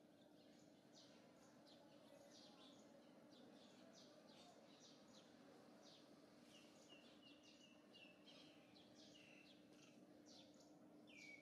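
Faint bird chirping: many short, quick, falling chirps, several a second, with a few longer notes and one louder falling call near the end, over a faint steady low hum.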